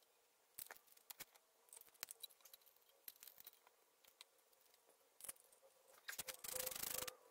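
Faint clicks and taps of a thermostat housing and its bolts being handled and fitted by hand against an engine block, with a longer rustle of handling near the end.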